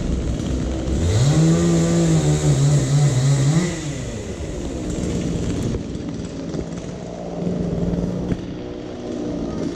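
A small petrol engine revs up sharply about a second in, runs high for about two and a half seconds, then drops back and keeps running at a lower, steady speed.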